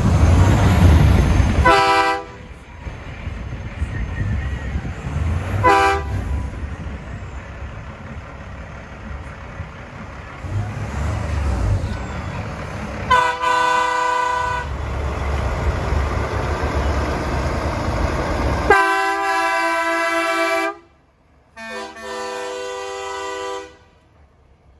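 Big-rig dump trucks rolling past with their diesel engines running while the drivers sound their air horns: short chorded blasts about 2, 6 and 13 seconds in, then a long blast near 19 seconds and another a couple of seconds later.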